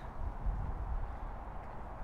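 Wind buffeting the microphone: an uneven low rumble that rises and falls in gusts.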